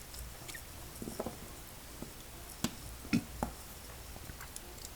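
Faint scratching and small sharp metal clicks of padlock parts being handled and pressed together, with a few louder ticks between about two and a half and three and a half seconds in. A part is being forced into the lock and will not seat because something is too tight.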